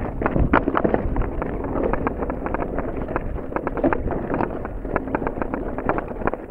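Mountain bike descending a rocky dirt trail: tyres rolling over dirt and loose stones, with a constant rapid rattle of knocks and clicks from the bike over the rough ground, and wind on the microphone.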